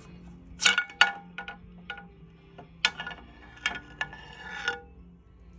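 Metal parts clinking against each other: about eight sharp clinks, each with a short ring, spread over about four seconds.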